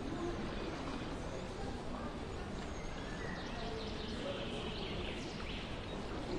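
Outdoor garden ambience: an indistinct murmur of distant voices under a steady background hiss, with birds chirping briefly around the middle.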